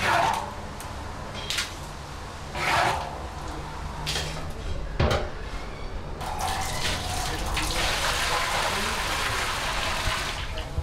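Hot meat broth poured from a stainless steel stockpot into a large copper pot: a steady splashing pour that starts about six seconds in. Before the pour there are a few short clinks and knocks.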